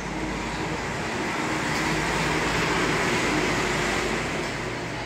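A road vehicle passing by: a steady noise that swells, is loudest about three seconds in, then fades away.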